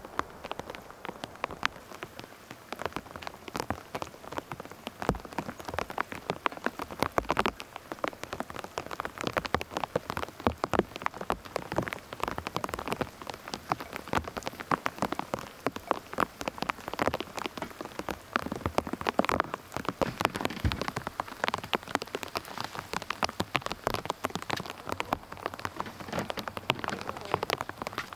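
Steady rain falling, with many individual drops ticking sharply and irregularly close by.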